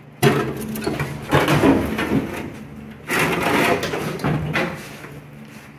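Rust-eaten inner fender being wrenched out of a 1975 Chevy C10's front end: three rough bouts of scraping and crunching, the first starting suddenly.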